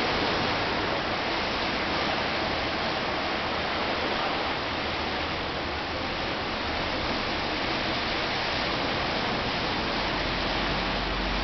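Steady, even rushing outdoor noise with no distinct events, of the kind made by the sea and open air heard from high above a shore.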